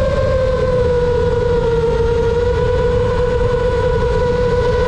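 FPV racing drone's brushless motors and propellers whining at a steady pitch that sags slightly over the first couple of seconds, over a constant low rumble.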